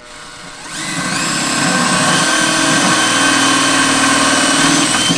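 Makita 18V cordless drill running: the motor spins up over the first second, then holds a steady, loud, high-pitched whine.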